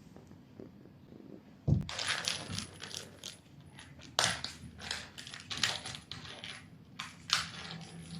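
A kitten at play with something small and hard: a thump about two seconds in, then a run of uneven light clattering and scraping, like a small object skittering on a hard surface.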